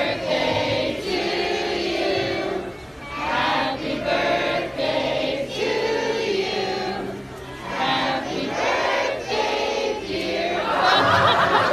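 Several voices singing together in drawn-out phrases, with short breaks about three and seven and a half seconds in.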